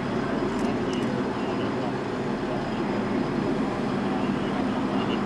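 Steady low rumble of truck engines idling, with faint voices in the background.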